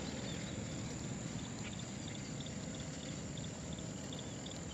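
Quiet outdoor ambience: a steady faint rushing noise, with short high chirps repeating about three times a second from about a second and a half in.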